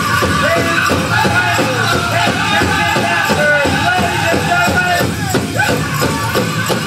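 Powwow drum group singing in high voices over a steady, even drumbeat.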